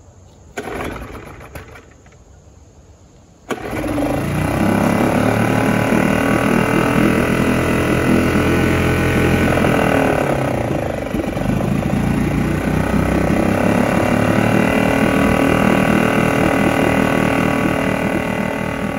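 Yamaha 2.5 hp four-stroke outboard being pull-started. A first pull of the starter cord doesn't catch, then about three and a half seconds in the engine fires and runs steadily, its speed dipping briefly and picking up again about ten seconds in. It is running on a carburetor just cleaned of gummed old fuel.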